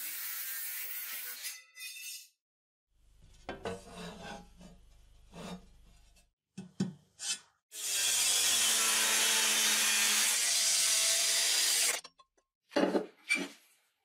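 Angle grinder cutting sheet steel, in two runs: one ends about a second and a half in, and a louder, steady one lasts about four seconds from the middle to near the end. Between them come light knocks and clinks of the steel plate being handled, and two sharp metal knocks follow near the end.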